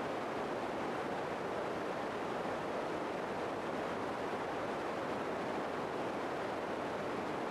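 A steady, even hiss that does not change, with no other sounds in it.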